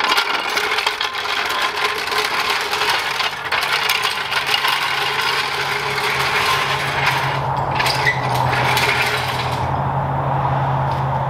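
Metal tools and hardware clinking and clattering in quick, irregular succession during work on a car's wheel and suspension, with a steady low hum coming in about three seconds in.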